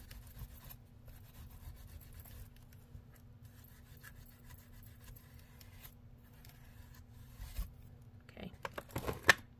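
Steel wool scrubbing faintly over soldered lines on a glass panel, roughing up the shiny solder so the black patina will take. A few sharp knocks about nine seconds in.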